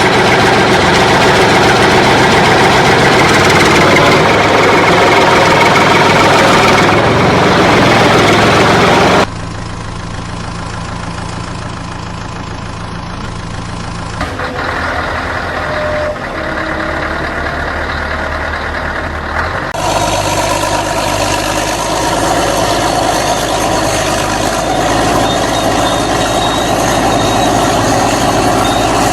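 Vehicle engine idling steadily, with a low, even hum. The sound changes abruptly about 9 seconds in, drops in level, then changes again around 14 and 20 seconds in as each stretch cuts to the next.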